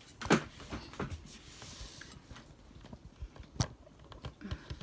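Scattered knocks and clicks of a plate of food being handled at a table. The loudest come just after the start and about three and a half seconds in, with a few lighter ones between.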